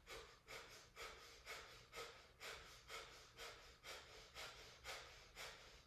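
Kundalini breath of fire: short, forceful breaths pumped from the belly in an even rhythm of about two a second, faint.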